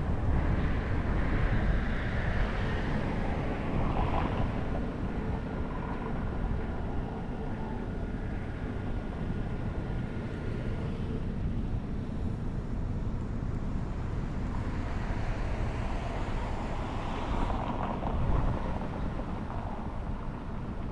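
Steady low rumble of a car driving on city roads, with tyre and traffic noise that swells twice, once near the start and once near the end.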